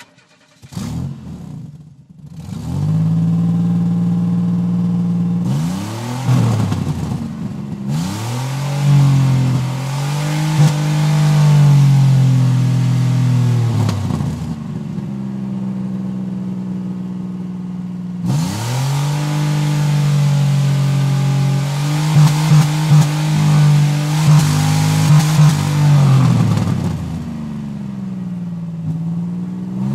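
Car engine started and then revved repeatedly. After a starter-like spin in the first two seconds it catches into a steady idle. Its pitch rises and falls with each rev, and a quick run of short, sharp blips comes about two-thirds of the way in before it settles back.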